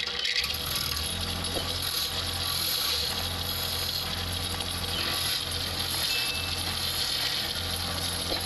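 Wood lathe running steadily, a low motor hum under a continuous hiss.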